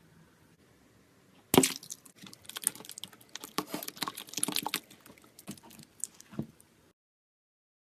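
Slime stress ball being cut with a blade: a sharp crack about a second and a half in, then a run of crackling and clicking for a few seconds, and the sound stops abruptly near the end.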